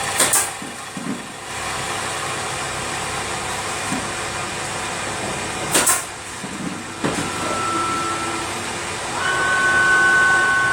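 CNC wood lathe running: a steady machine hum with a few sharp clicks, then a high whine that comes in about two-thirds of the way through and turns louder and higher near the end.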